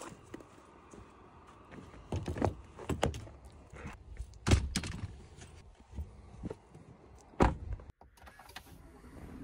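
Getting into a pickup truck: a string of thunks, clicks and knocks from the door and a bag set down on the seat. The loudest thuds come about four and a half and seven and a half seconds in.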